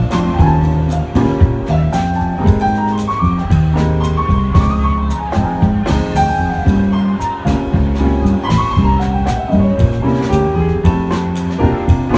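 A small jazz band playing live: electric bass notes moving underneath, a keyboard playing melodic lines, and a drum kit keeping time with frequent cymbal and drum strikes.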